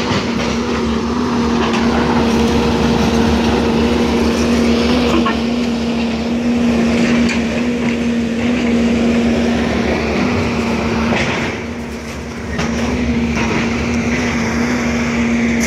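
John Deere 200D LC tracked excavator's diesel engine and hydraulics running steadily at working speed, a constant droning hum, with a few knocks from the work. The sound eases briefly about twelve seconds in.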